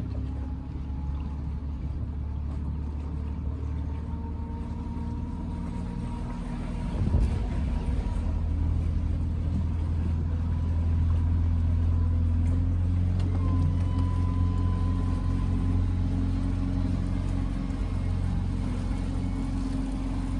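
The sightseeing boat's outboard motor running steadily with a low hum, picking up and getting a little louder about seven seconds in.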